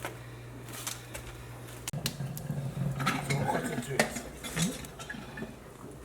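Dishes, pots and utensils clinking and knocking during food preparation, busiest in the middle. A steady low hum stops about two seconds in.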